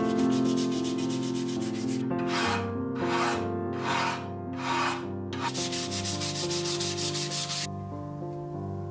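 Sandpaper rubbed by hand along an old rosewood tool handle: quick back-and-forth strokes, then four slower, longer strokes in the middle, then quick strokes again that stop about a second before the end. Soft background music runs underneath.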